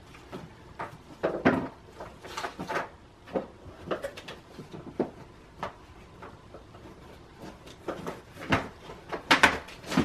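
Product packaging being handled and pushed closed by hand: a run of short knocks, scrapes and rustles, busier and louder in the last couple of seconds.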